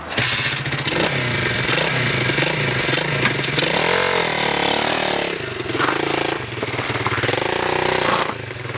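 125cc pit bike engine with a makeshift exhaust, running as the bike rides slowly. About four seconds in it revs up and falls back, with smaller rises in pitch after that.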